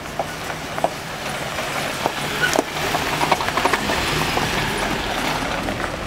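UAZ off-road SUV driving slowly over a loose gravel track, its engine running under the crunch and crackle of tyres on stones, getting louder about two seconds in as it draws near and passes.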